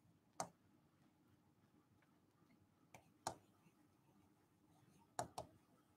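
Near silence broken by about five faint, brief taps of chalk against a blackboard while writing, two of them close together near the end.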